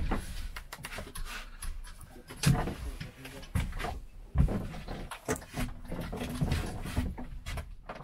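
Wind buffeting a phone microphone on an open boat, a steady low rumble with gusting puffs, broken by a few sharp handling knocks, the loudest about two and a half and four and a half seconds in.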